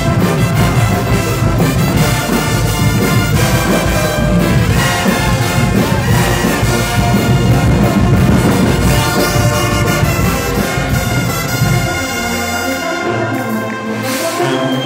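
Guggenmusik brass band playing loud: sousaphones, trumpets and trombones over a heavy beat. About twelve seconds in the low end falls away, leaving the horns holding chords.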